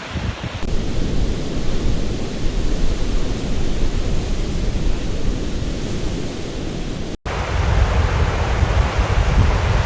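Wind buffeting the microphone: a loud, steady rumbling hiss heaviest in the low end. About seven seconds in, it cuts out for an instant and comes back with a stronger low rumble.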